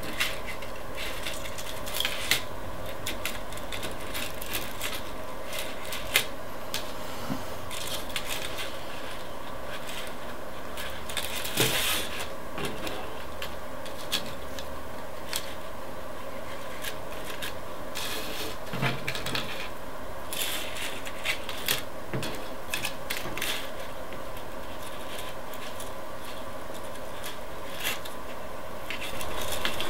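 Metal paper clips clinking and plastic drinking straws tapping and rubbing on a wooden tabletop as they are pushed together into joints. There are scattered sharp clicks every few seconds over a steady background hum.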